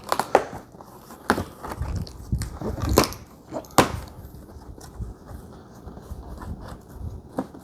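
Cardboard shipping box being opened and its packaging handled: irregular crackles, scrapes and knocks of cardboard, the sharpest about three and four seconds in.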